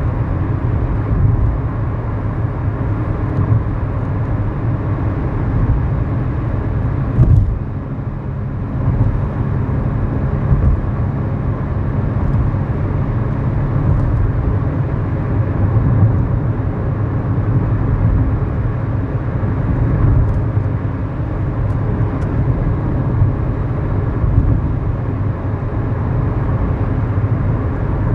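Kia New Morning's 999 cc four-cylinder engine running steadily under way, heard inside the cabin with road and tyre noise. A short click about seven seconds in, followed by a brief drop in level.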